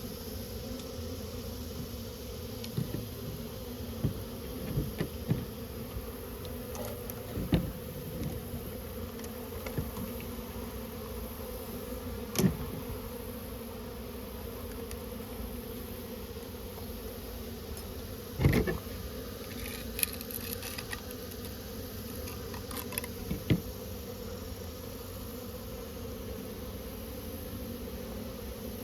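Honeybee colony buzzing steadily, a dense swarm hum. Scattered short knocks and clicks from handling sound over it, the loudest about 18 seconds in.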